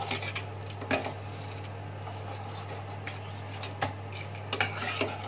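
A metal ladle stirring thick cooked dal in a pressure cooker, knocking a few times against the pot, once most sharply about a second in, over a steady low hum.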